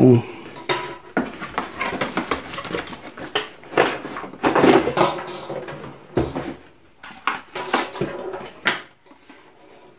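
Cardboard box and its paper packaging being handled: an irregular run of rustling, scraping and knocks as a plastic aquarium internal filter is lifted out of its box.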